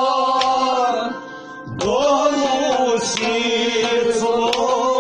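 Kashmiri Sufi song: a singer holding long, bending notes over instrumental accompaniment, breaking off briefly about a second in and taking up a new phrase just before the two-second mark.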